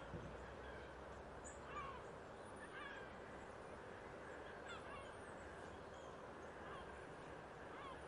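Park ambience: a faint, steady background hum with short bird calls scattered every second or two, which sound goose-like.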